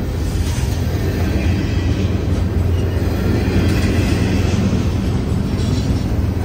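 CSX intermodal freight train rolling past, a loud, steady noise of wheels and cars on the rails.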